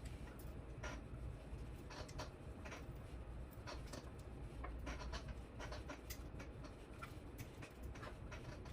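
Faint, irregular small clicks and scratching of hands handling and positioning servo cables and parts on a model helicopter frame, over a steady low hum.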